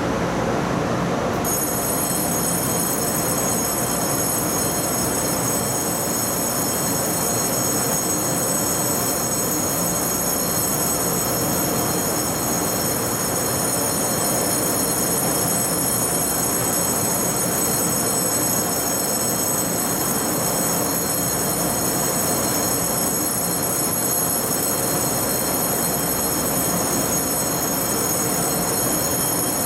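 Taiwan Railways EMU500 electric train sound: a steady, even noise with several high-pitched whining tones that switch on about a second and a half in and then hold steady.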